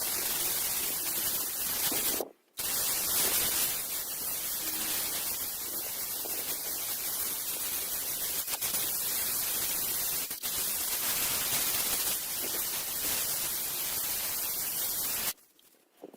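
Sanding of the car's steel fender with 80-grit abrasive, stripping old cracked body filler back to bare metal: a steady abrasive noise that breaks off briefly about two seconds in, resumes, and stops suddenly near the end.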